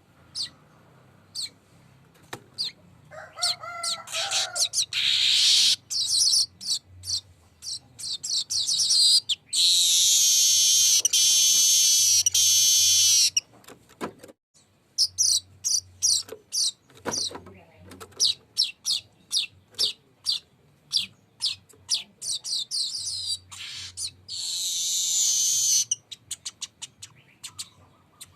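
Manyar (weaver bird) singing: quick strings of sharp high chips that run into long, dense buzzing rolls. The longest roll comes about ten seconds in and lasts some four seconds, and a shorter one comes near the end.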